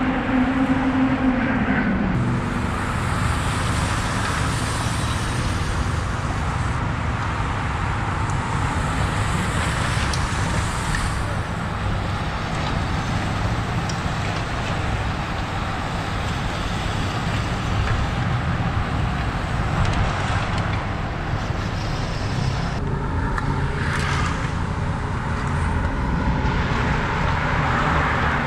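A pack of racing road bikes sweeping past close by: a steady rushing of tyres on asphalt and moving air with a low rumble. A low steady hum sits under it for the first two seconds.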